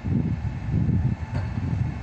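Gusty wind rumbling on the microphone over an approaching freight train hauled by a Siemens Vectron electric locomotive, with faint steady tones above the gusts.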